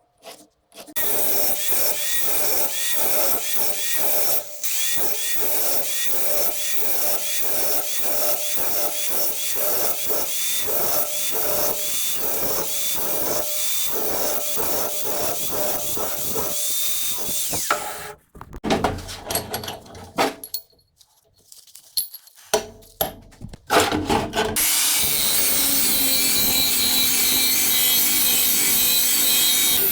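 Rhythmic back-and-forth strokes of a hand tool working metal, about two a second, lasting roughly seventeen seconds. A few scattered knocks and a short pause follow, then a power tool starts and runs steadily to the end.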